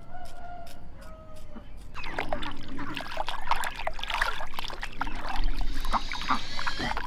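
Hands splashing and sloshing water while scrubbing raw pork in a plastic basin, starting about two seconds in. Before that come short scraping strokes of a razor blade shaving hair off the pork skin.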